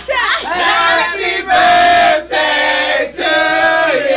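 A group of people singing together loudly, several voices holding long notes, with rising whoops right at the start.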